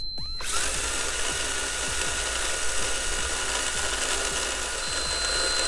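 The small electric motor and four-wheel-drive drivetrain of a 1/28-scale RC car running flat out with its wheels spinning on the rollers of a speed checker: a steady whir that starts about half a second in.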